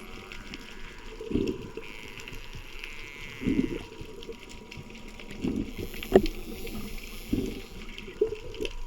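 Underwater sound of a scuba diver's regulator, with bubbles bursting in short surges about every two seconds. There is a sharp click about six seconds in.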